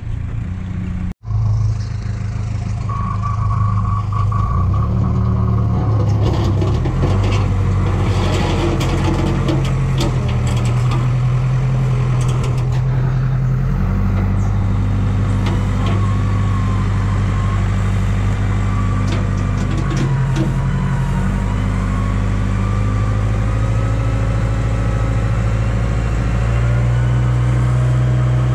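Heavy diesel engine running under changing load, its pitch stepping up and down several times, with scattered clicks and knocks and a wavering whine partway through.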